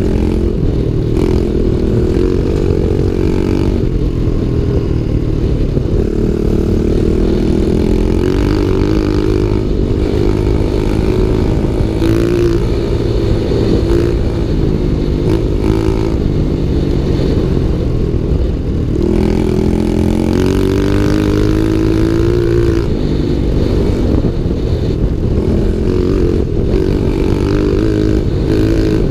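Pit bike's small engine running under way, its pitch rising and falling with the throttle, with a long climb about two-thirds of the way through.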